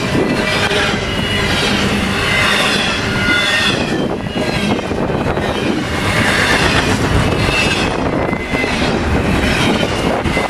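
A long double-stack intermodal freight train rolling past at track speed, its steel wheels clattering steadily over the rails. Faint high-pitched ringing tones come and go.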